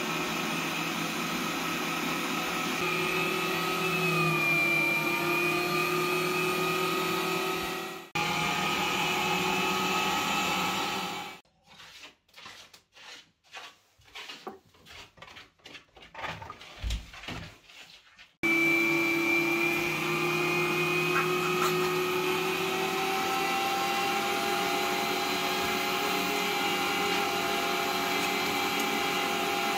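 Bosch ProPower electric meat grinder motor running steadily while grinding pork, its pitch dipping briefly a few seconds in. It stops for about seven seconds midway, leaving only faint clicks, then runs again.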